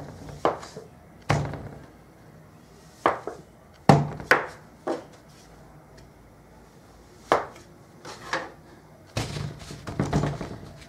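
A metal bench scraper chopping down through stiff polvorón dough and knocking on the wooden worktable: a string of sharp single knocks, a second or so apart. Near the end come a quicker run of softer knocks and rustles as the cut pieces are pressed into sugar in a metal bowl.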